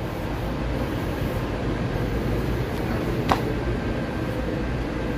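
Steady low rumble and hiss of wind buffeting the microphone, with one brief falling squeak about three seconds in.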